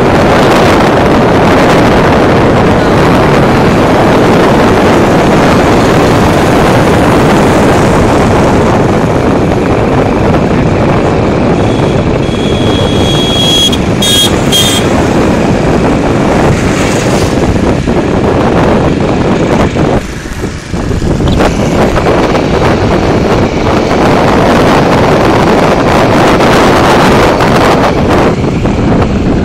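Wind rushing over the microphone of a phone carried on a moving motorcycle, with the bike's engine and road noise running under it. The noise drops briefly about twenty seconds in, and a short high-pitched tone is heard about twelve seconds in.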